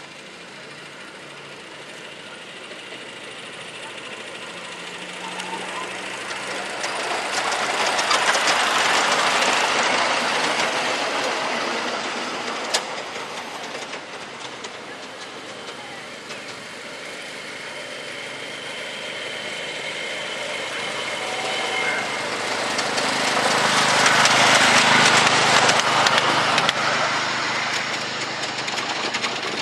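Miniature ride-on train running past on ground-level track: its wheels rumble and clatter on the rails, rising to a peak and fading away twice. Between the two passes a thin high whine sounds, with a sharp click about twelve seconds in.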